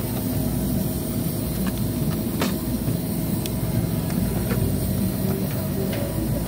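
Steady low rumble of background noise, with a few light clicks and taps as hands handle toy packages on the shelf hooks, the sharpest about two and a half seconds in.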